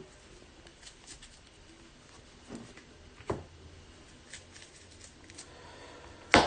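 Baseball trading cards being handled and sorted on a table: scattered soft taps and slides, with one sharper tap near the end.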